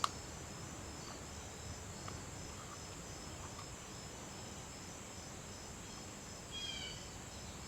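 Faint background of insects chirping in a high, repeating pulse over a steady low hiss, with a single click at the start and a brief chirp with falling pitch near the end.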